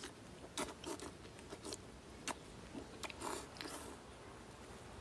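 Close-up eating sounds of a person eating canned fermented herring (surströmming) off a fork: wet mouth smacks and chewing, with several sharp clicks and a short noisy stretch about three seconds in.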